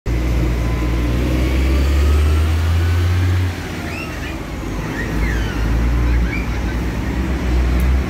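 Heavy truck engine running with a loud, steady low drone amid road traffic noise. The drone drops about three and a half seconds in, then builds again.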